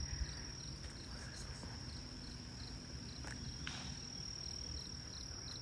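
Night insects: a steady high-pitched drone with a cricket chirping evenly, about three chirps a second.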